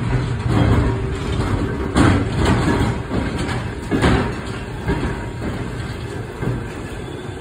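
1923 Philadelphia snow sweeper C-145, an electric rail car, rumbling past on its trucks. Its steel wheels clunk several times over the track, loudest about two and four seconds in.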